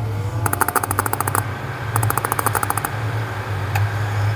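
Epson S31 projector making two rapid bursts of crackling clicks, about a second each, over a steady low hum. The technician takes the noise for a failing lamp that is arcing as it tries to light.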